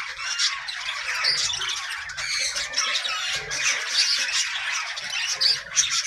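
A flock of budgerigars chattering and squawking without pause, many calls overlapping, with sharper, louder squawks standing out every second or so.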